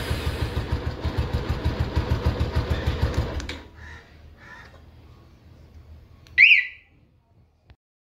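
Bajaj Pulsar 220F's single-cylinder engine idling with an even low pulse, cutting out about three and a half seconds in. A few seconds later the bike's aftermarket alarm siren gives one short chirp that rises and falls, as its remote key fob is used.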